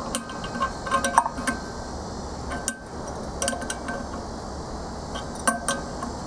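A wrench clinking against the hub set screw and sheet-metal squirrel-cage wheel of a furnace blower as the set screw is tightened onto the motor shaft. The clinks come in several small clusters, each with a short metallic ring.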